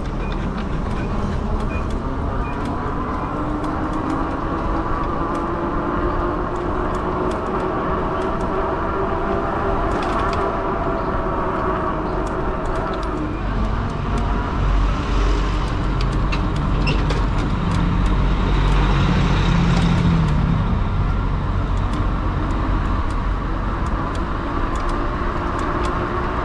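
Fat-tire e-bike underway: a steady hum of several tones that drifts slowly up and down in pitch with speed, over a constant low rumble.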